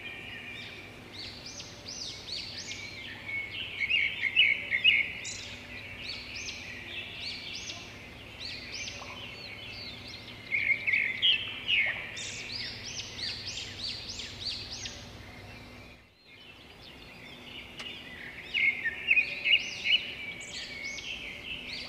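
Many small songbirds chirping and twittering in a dense, continuous chorus, which breaks off briefly about two-thirds of the way through before resuming.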